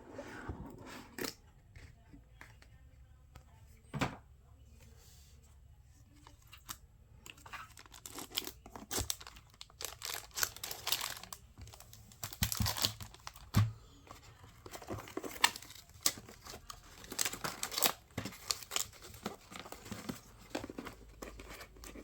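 Keyboard packaging being opened by hand: irregular tearing and crinkling of paper and plastic wrapping, with a few sharp knocks as the box and its contents are handled, busiest in the second half.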